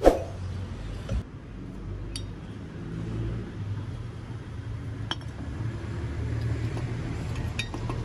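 Car engine running with a steady low hum. A sharp knock comes at the start and another about a second in, with a few light metallic clicks after that.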